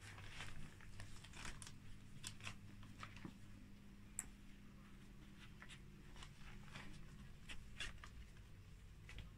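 Faint, scattered scratching and rustling of kittens moving about in a pop-up fabric cat play house, claws catching on the fabric, with a sharp tick about four seconds in, over a low steady room hum.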